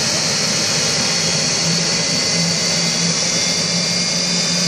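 Jet car's turbine engine running steadily: a loud, even rush with a high whine that creeps slowly up in pitch.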